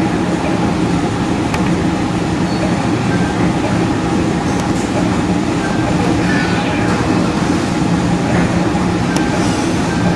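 An engine running steadily: loud, even noise over a constant low hum, starting abruptly.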